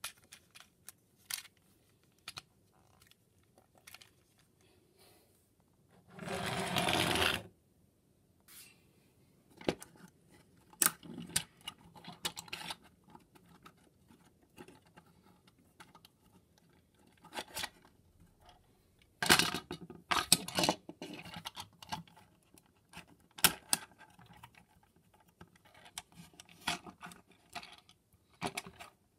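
Plastic clicks, knocks and rattles of a Transformers Siege Ultra Magnus action figure being handled and transformed, as its parts are moved and snapped into place; the clicks come irregularly, in clusters. About six seconds in there is a noisy burst lasting a little over a second.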